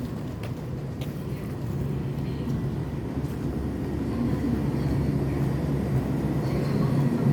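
Low engine rumble with a steady hum, growing gradually louder as it approaches.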